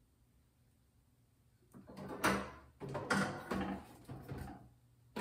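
Rummaging in an open refrigerator: a run of knocks and rattles as bottles and containers are moved on the shelves, starting about two seconds in after near quiet.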